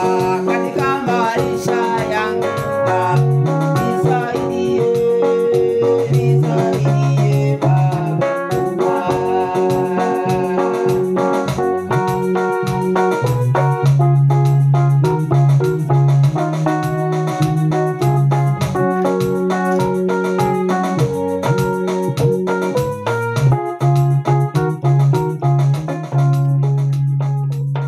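Electronic keyboard playing an instrumental gospel tune, with a sustained low bass and held chords under a melody line. The music cuts off at the end.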